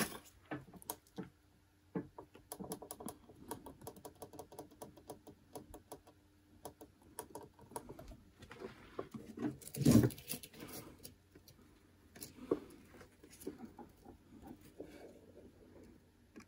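Faint scattered light clicks, taps and rustles of hands handling tools and wire at a workbench, with one louder knock about ten seconds in.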